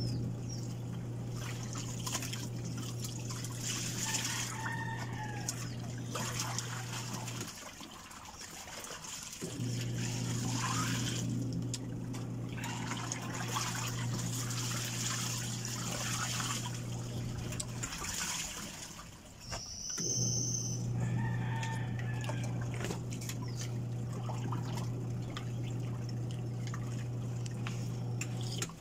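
Noodle soup being slurped from a spoon, with small clinks, over chickens clucking in the background. A steady low hum runs underneath and stops briefly twice.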